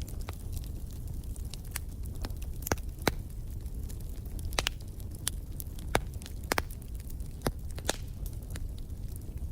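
Wood fire in a fireplace crackling, with sharp irregular pops and snaps over a steady low rumble of the flames.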